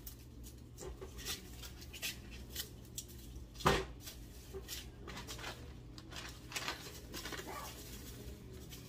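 Scattered clicks, taps and rustles of onions and a plastic mesh produce bag being handled and cut open on a cutting board, with one louder knock about a third of the way in, over a steady low hum.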